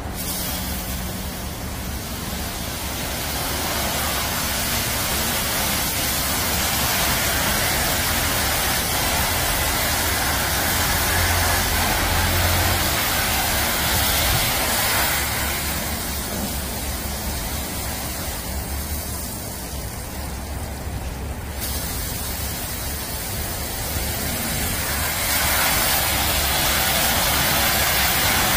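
High-pressure water jets of a touchless car wash rinsing foam off a car, a steady hiss of spray striking the body. It eases for a few seconds past the middle and grows louder again near the end.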